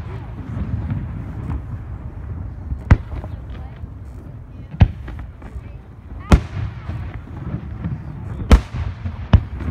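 Aerial firework shells bursting overhead: five sharp bangs, one to two seconds apart, the last two closer together, over a steady low rumble.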